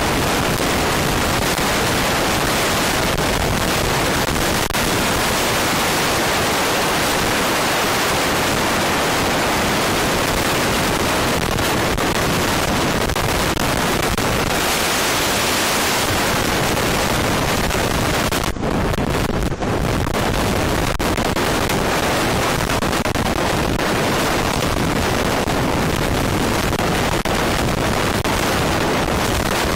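Big forklift running under load as it moves a boat, heard as a loud, even rush of engine and machine noise with no clear pitch. The noise dips twice, very briefly, about two-thirds of the way in.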